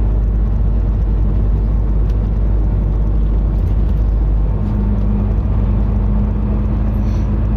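Inside a moving city route bus: a steady low rumble of engine and road noise. About halfway through, a steady low engine hum joins in.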